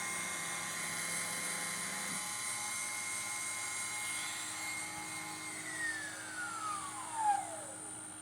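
VFD-driven CNC router spindle running with a steady high whine. Its pitch falls smoothly over the last few seconds as it spins down at the end of the cut.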